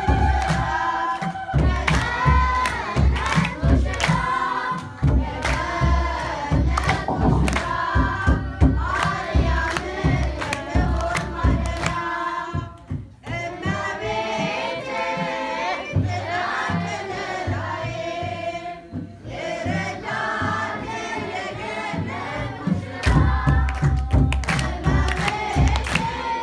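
A choir of children and young women singing an Ethiopian Orthodox hymn together, with rhythmic hand clapping and a steady low beat.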